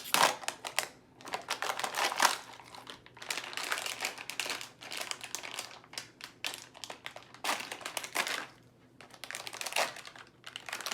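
Plastic packaging being crinkled and torn open by hand. It comes as irregular crackling in spells, with short pauses between them.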